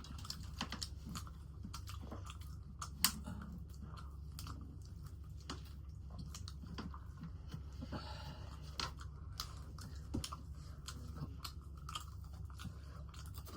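Close-up eating sounds: chewing and crunching with scattered short mouth clicks, over a steady low hum.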